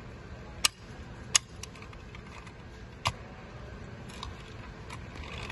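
Sharp small clicks from the doors of a diecast toy Mercedes-Benz Sprinter van being snapped shut: three distinct clicks within the first three seconds. Fainter ticks follow as the toy is handled.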